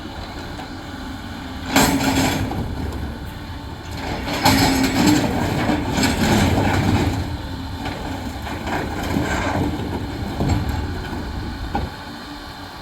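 Caterpillar heavy machine's diesel engine running, with loud rough scraping and clattering bursts about two seconds in and again from about four and a half to seven seconds in, as it works with rocks.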